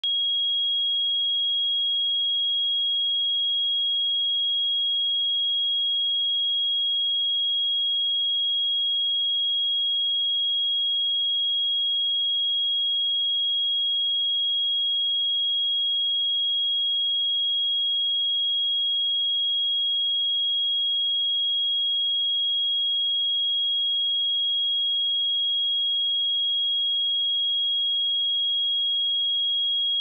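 A pure 3293 Hz sine-wave test tone: one high-pitched, steady tone, unchanging in pitch and level.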